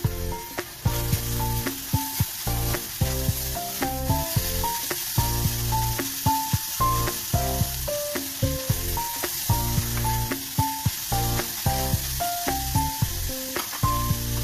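Grated carrots sizzling steadily in hot oil in a pot, with a silicone spatula stirring and scraping them and a few sharp clicks. Background music with a melody and a bass line plays throughout.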